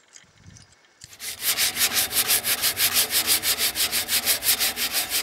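Crumpled, vinegar-soaked aluminium foil scrubbed fast back and forth against a rusty metal barbecue leg to rub the rust off, in rapid, even strokes starting about a second in.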